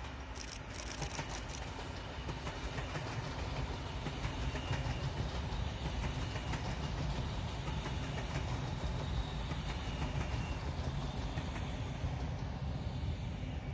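A long Trenord TSR double-deck electric regional train passing, its wheels rumbling on the rails with scattered clicks.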